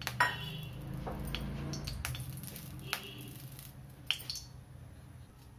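Several sharp metal clinks of kitchenware against an aluminium kadhai as cooking oil is added to it, the loudest just after the start and about four seconds in.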